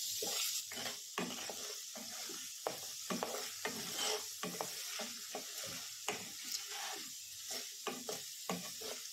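Shallots, green chillies and curry leaves sizzling in hot oil in a non-stick pan while a spatula stirs them, scraping the pan in short, irregular strokes about twice a second.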